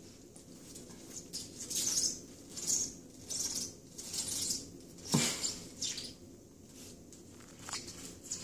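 A young raccoon's claws scrabbling and pattering on a smooth bathtub surface in short flurries as it spins chasing its tail, with a dull bump about five seconds in.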